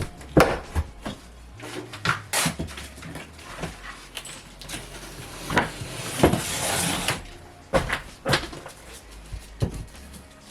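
Irregular knocks and bangs of hand demolition work, with a longer scraping, crunching stretch about five seconds in as material is torn loose.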